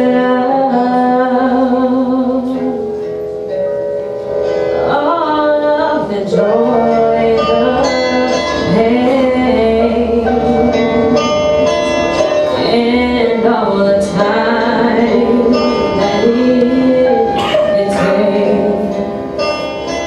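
Woman singing an R&B ballad live into a microphone, holding long notes with vibrato and sliding runs, over a recorded backing track with a plucked string instrument.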